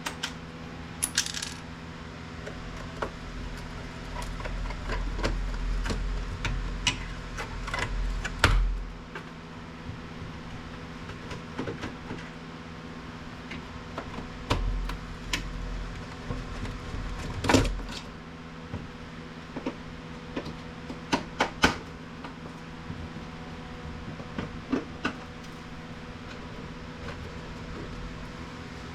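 Scattered clicks, clinks and knocks of small metal screws and plastic printer parts being handled and set down during hand disassembly of an inkjet printer, with a steady low hum underneath. Two longer low-pitched stretches of handling noise come about four seconds in and again around fifteen seconds in.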